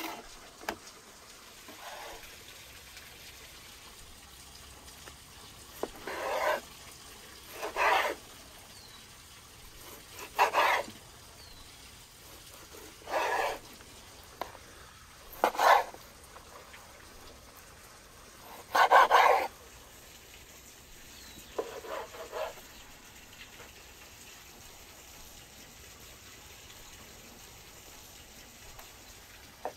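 Dog barking, about eight separate barks at irregular intervals, stopping about two-thirds of the way through.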